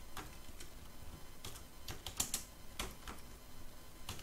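Computer keyboard typing: irregular keystroke clicks as short words are typed in.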